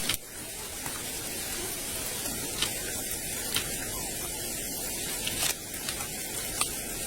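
Steady hissing noise with a few faint clicks scattered through it.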